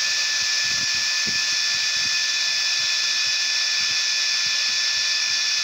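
DC cooling fan on the L-Cheapo Mk7 laser diode engraver head running: a loud, steady whir with a fixed high whine. The fan also blows air assist onto the glass being engraved.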